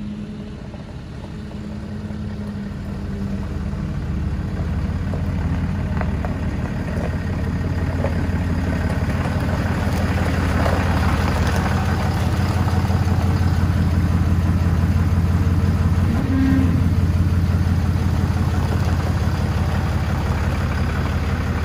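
6.7 L Cummins inline-six turbo diesel in a Ram pickup idling steadily, growing louder as it is approached.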